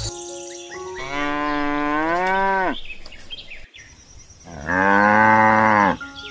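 A cow mooing twice: one long moo about a second in, then a second, louder moo near the end.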